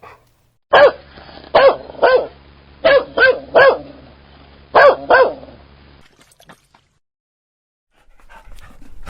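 A dog barking: eight sharp barks in three quick runs of three, three and two, then it stops.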